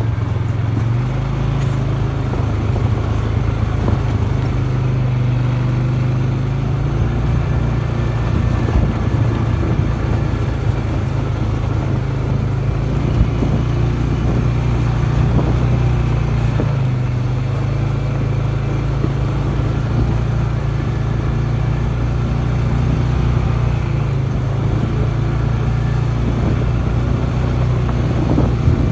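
Off-road vehicle engine running at low, fairly steady revs on a dirt trail descent, with a constant low hum.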